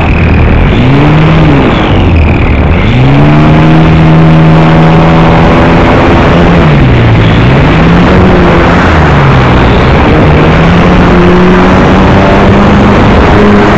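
Motor and propeller of a radio-controlled model Cessna in flight, heard through the onboard camera's microphone over a steady rush of wind. The motor's pitch dips sharply twice, about two and seven seconds in, as the throttle is eased and opened again. It then climbs slowly and holds higher near the end.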